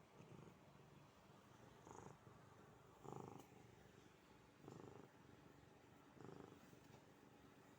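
Maine coon cat purring while being stroked: a low, faint rumble that swells with each breath, about every one and a half seconds. It is a deep purr that sounds like a tiger's.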